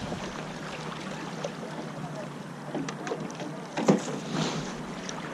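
Rowing eight being spun by backing one side and rowing the other: a steady wash of water and wind heard through the coxswain's microphone, with a single sharp knock about four seconds in.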